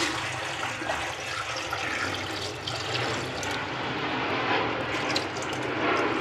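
Water poured from a plastic bucket into a shallow plastic crate, splashing steadily into the water already in it.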